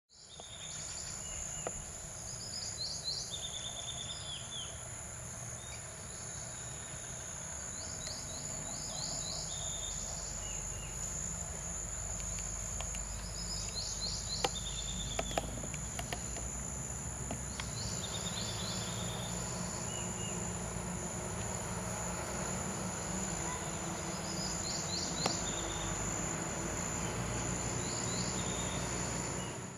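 Insects trilling steadily in two high-pitched tones, with groups of quick chirps recurring every few seconds and a low rumble underneath.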